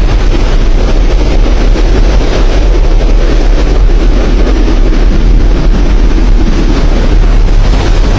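Strong wind buffeting the microphone: a loud, steady, heavy rumble with a dense hiss above it.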